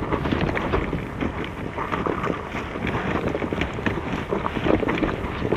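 Footsteps of a hang-glider pilot walking over dry leaves and stony ground while carrying the glider, an uneven run of steps, with wind buffeting the glider-mounted microphone.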